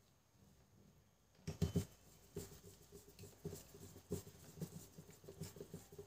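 Irregular small clicks and knocks of plastic gears and parts being handled and fitted back into a Brother laser printer's gear train, beginning about one and a half seconds in.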